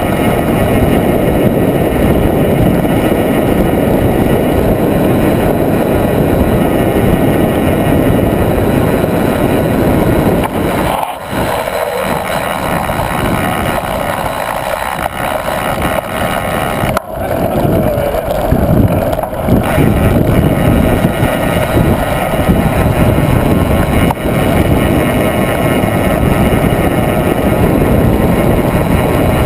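Mountain bike tyres rumbling over a dirt track at speed, with wind buffeting the action camera's microphone. The noise is loud and steady, broken by a few sharp knocks from bumps, and the low rumble eases twice for a couple of seconds.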